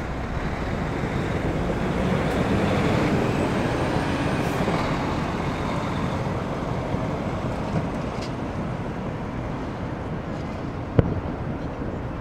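Road traffic passing, the noise of a vehicle swelling and then slowly fading. One sharp firework bang stands out near the end.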